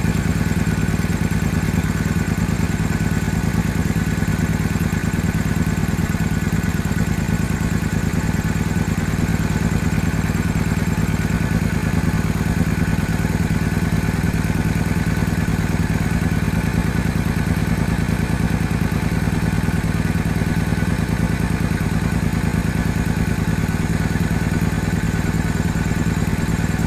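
Small motorcycle engine idling steadily, with no revving.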